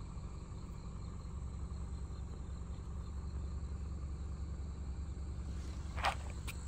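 Low steady rumble of an idling car engine, under a faint, steady high chorus of insects. Two short clicks near the end.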